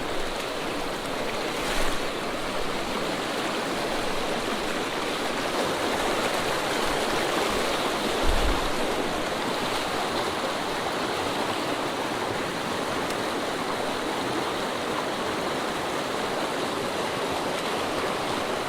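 Swift mountain creek water rushing steadily, with two brief thumps, one about two seconds in and another about eight seconds in.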